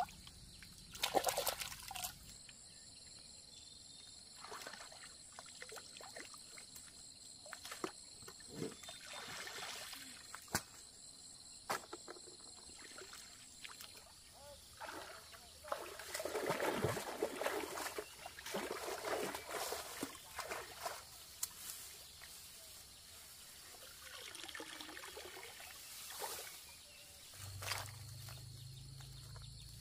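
Water splashing and trickling in irregular sloshes, with a longer stretch of sloshing a little past the middle.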